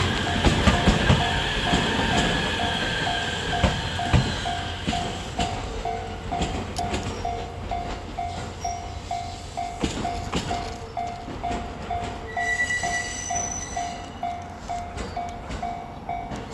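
Japanese level-crossing warning bell dinging steadily, just under two dings a second, while the Twilight Express Mizukaze train runs past, its rumble fading over the first several seconds.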